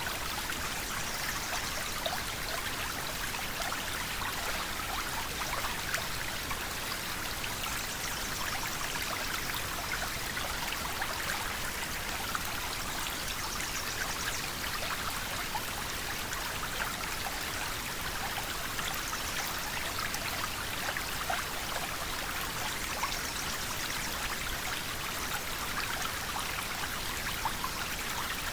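River water flowing steadily over stones, a constant rushing hiss with many small splashes and trickles through it.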